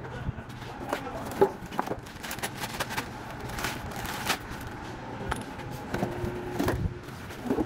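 Scattered knocks, clicks and scrapes of car parts and tools being handled, with a brief steady hum about six seconds in.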